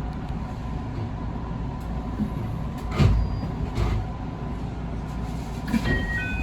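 JR West 221 series electric train running, heard from inside the front car: a steady low rumble with two clunks about three seconds in, and short high beeping tones near the end.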